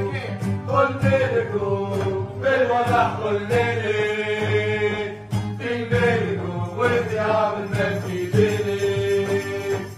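Football supporters' song: voices singing a chant-like melody with long held notes over a steady low accompaniment.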